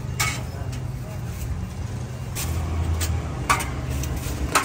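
Busy street ambience: a steady low traffic rumble under indistinct background voices, with a few short sharp clinks about a second apart near the middle and end.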